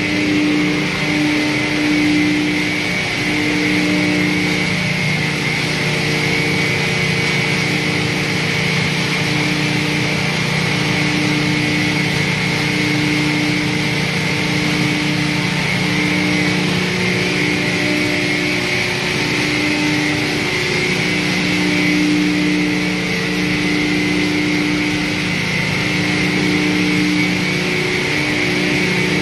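Dual-shaft hammer mill running continuously while crushing wood chips. It makes a steady, loud machine noise with a low hum that shifts in pitch every second or two and a constant high whine.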